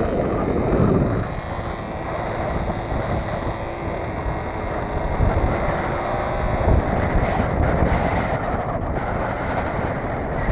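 Strong wind buffeting the microphone, with a faint steady tone underneath that fades after a few seconds.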